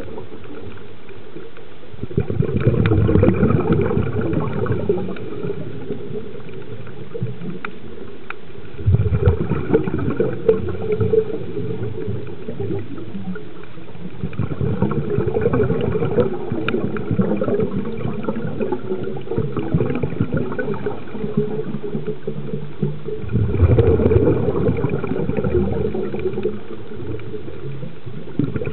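Muffled underwater water noise of a rough, churning low rush as water moves past the camera housing. It swells louder about 2 s, 9 s and near 24 s in, with faint scattered clicks above it.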